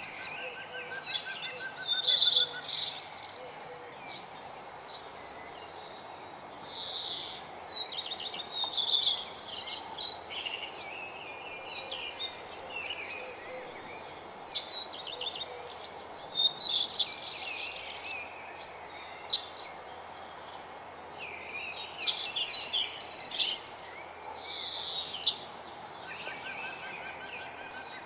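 Songbirds singing: short bursts of high, rapid notes and trills, a new phrase every few seconds, over a steady background hiss.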